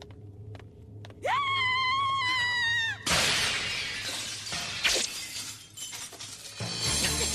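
A high-pitched scream held for about two seconds, cut off by window glass shattering loudly as it is smashed, with a sharp crack a couple of seconds into the crash as the noise dies away.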